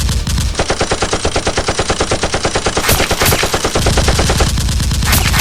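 Rapid automatic gunfire: a fast, even run of shots, about ten a second, continuing without a break.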